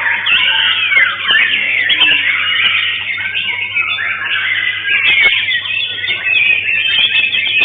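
White-rumped shamas (murai batu) singing in a songbird contest: a dense, continuous stream of rapid whistles, chirps and sweeping notes from several birds overlapping, under a faint steady hum.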